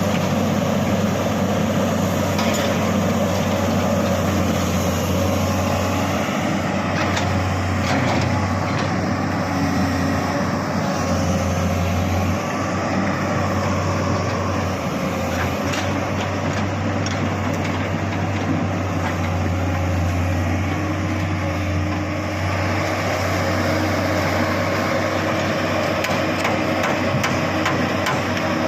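EX200LC crawler excavator's diesel engine running steadily under work, a constant low drone with a few short knocks scattered through it.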